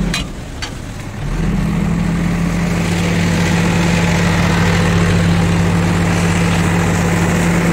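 JCB 3DX backhoe loader's Kirloskar diesel engine running steadily as the machine drives through river water. The engine sound drops away for about a second near the start, then comes back, with water splashing and churning around the tyres.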